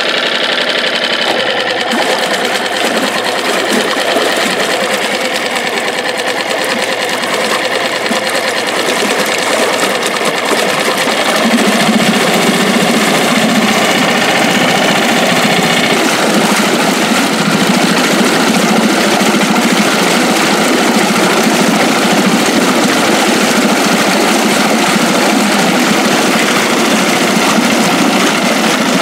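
Tohatsu 5 hp four-stroke outboard motor running steadily in a test tub of water, cowling off. About eleven seconds in its sound deepens and grows a little louder, then holds steady.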